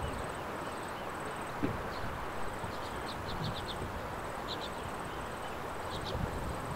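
Open-air rural ambience: a steady hiss of wind and field noise, with quick high chirps in short runs from about the middle on and a faint pulsing high trill.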